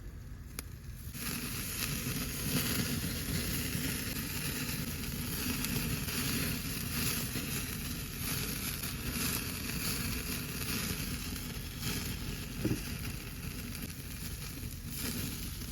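Garlic butter sizzling on oysters on a grill, the sizzle coming up about a second in and running steadily, over a low rumble.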